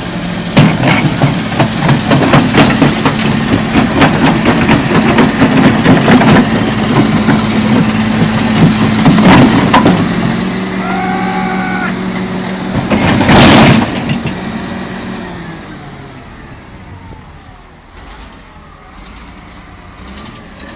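Crawler bulldozer's diesel engine running under load with the steel tracks clanking densely as it climbs onto a lowbed trailer. A sudden loud rush of noise lasting under a second comes about thirteen seconds in, after which the engine runs on more quietly.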